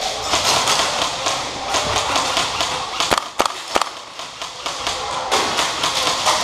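Indoor airsoft gunfire: a rapid clatter of shots and BBs smacking plywood barricades. About three seconds in it thins to three or four separate sharp cracks, then the clatter picks up again.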